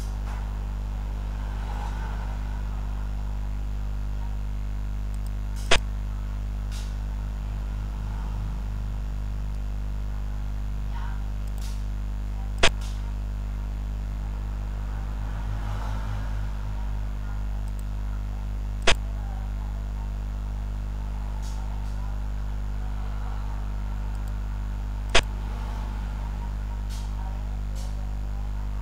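Steady low electrical hum, with four sharp clicks about six seconds apart: the piece-placing click of a xiangqi (Chinese chess) board program as each move is played.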